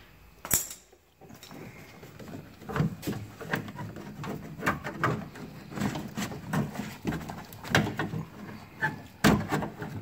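Irregular clicks, knocks and rattles of parts being handled inside a stripped car door panel. One sharp click comes about half a second in, then a steady run of small knocks.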